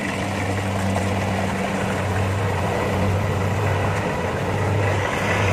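Kubota rice combine harvester running steadily at work: a constant low engine hum under an even mechanical noise.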